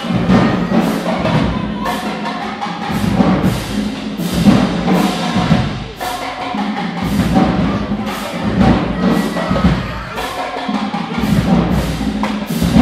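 HBCU-style marching band playing on the march: sousaphones and other brass holding loud low tones over a steady beat of drum hits about twice a second.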